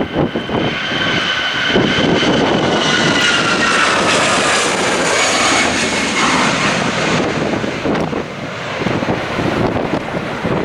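An airliner passing by with its engines running loud, their high whine sliding down in pitch as it goes past, over gusting wind on the microphone.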